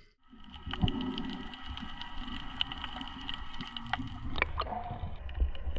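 Underwater sound picked up by a submerged camera: a steady, muffled low rumble of water with scattered small clicks and a faint steady high whine. It begins after a brief dropout at the very start.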